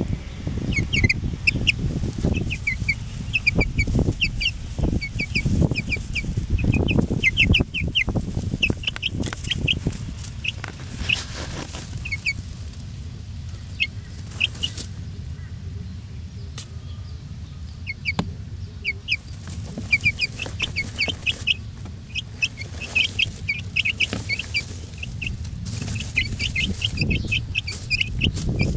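A group of 18-day-old Red Sussex chicks cheeping: short, high, falling peeps in quick runs, with a lull in the middle. A low rumble runs underneath, heaviest at the start and near the end.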